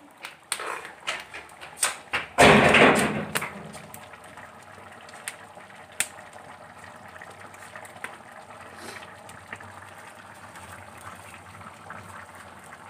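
Rice and water simmering in a metal pan over a crackling wood fire, with scattered sharp crackles early on and a steady bubbling hiss afterwards. About two and a half seconds in, a loud burst of noise lasts about a second.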